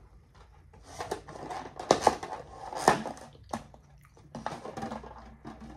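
Crackling and clicking of a clear plastic clamshell takeout container being handled, with sharp snaps about two and three seconds in.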